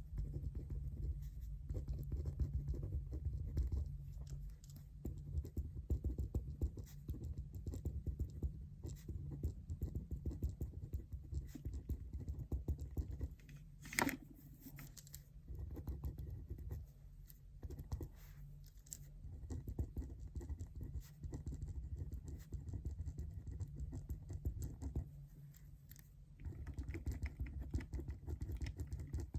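Continuous scratching and light tapping from desk study work, with many small clicks and one sharper click about halfway through.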